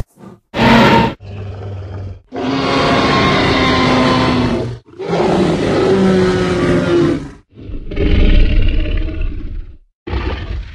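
A string of separate Tyrannosaurus rex roar and growl sound effects with short gaps between them: a short sharp call, a quieter growl, then three long roars of about two seconds each, some sliding down in pitch, and another beginning near the end.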